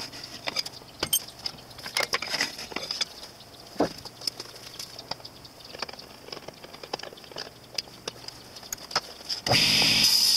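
Scattered light clicks and taps of handling at a table saw's fence and top while the saw is off. About nine and a half seconds in, the table saw switches on abruptly and runs loud and steady.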